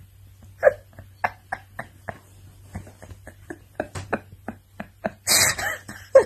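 Tabby cat suckling and chewing on a duvet cover, making irregular wet smacking clicks. Near the end comes a loud breathy burst of noise lasting about half a second.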